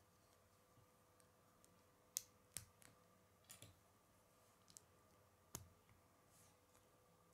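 Small plastic Lego pieces clicking as they are handled and pressed together by hand: about half a dozen sharp clicks, the loudest about two seconds in, over a faint steady hum.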